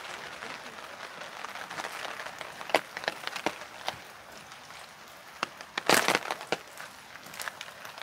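Steady rain with irregular sharp taps of heavy drops, loudest in a quick cluster about six seconds in.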